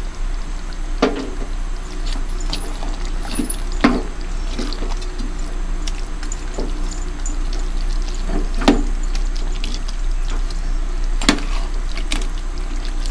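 Metal spatula stirring and turning chicken pieces coated in wet blended kacang ma in an enamel pot: moist squishing and scraping, with a few sharper clinks of metal on the pot, over a low steady hum.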